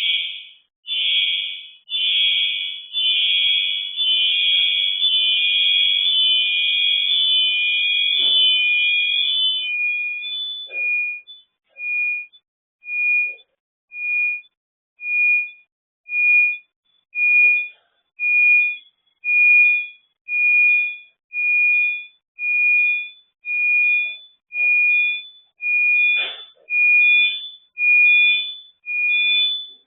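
Electronic alarm beeping. For about the first ten seconds several high tones overlap in a fast, almost unbroken run, then it settles into single high beeps about once a second.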